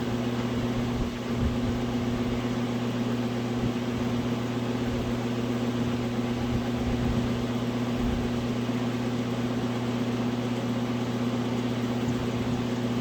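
Electric fan running steadily: a constant motor hum over a rush of air, with low uneven rumbles of air buffeting the microphone.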